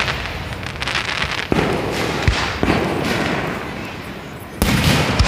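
Aerial fireworks shells bursting: crackling, then sharp reports about one and a half and two and a half seconds in, and a loud boom a little after four and a half seconds that dies away slowly.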